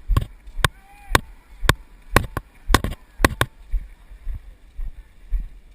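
Sharp clicks and knocks at walking pace, about two a second, as a kayak is moved along by one person. The clicks stop after about three and a half seconds, leaving only soft low thumps at the same pace.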